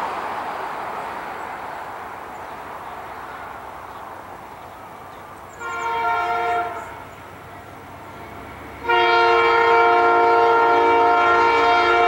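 Multi-chime air horn of an approaching Norfolk Southern GE Dash 9-40CW freight locomotive: one short blast about six seconds in, then a long, loud blast from about nine seconds in. A fading rush of noise fills the first few seconds before the horn.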